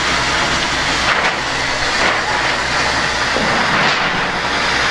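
Fire engine's pump running with a steady drone, under the rushing hiss of hose streams.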